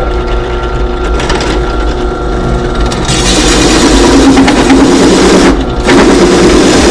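Drill press running at its lowest speed with a hole saw cutting into a metal plate: a steady motor hum, then from about three seconds in a loud, harsh grinding hiss as the saw's teeth bite, breaking off briefly near the end before resuming.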